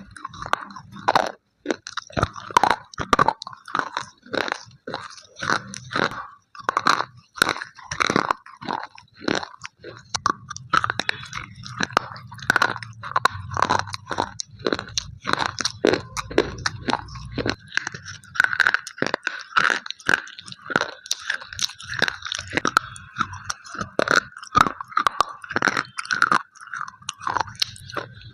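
Black and white slate pencils being bitten and chewed: a dense, irregular run of sharp crunches, several a second.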